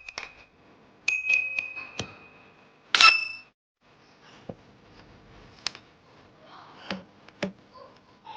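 Bright bell-like dings with small clicks, the loudest a single ringing strike about three seconds in. After a short gap come low room noise and a few light knocks.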